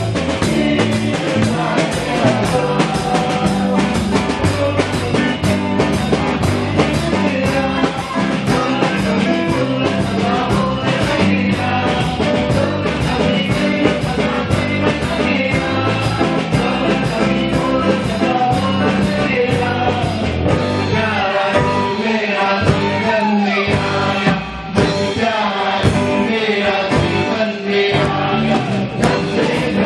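Loud amplified worship song played by a rock-style band with a steady drum beat, with singing.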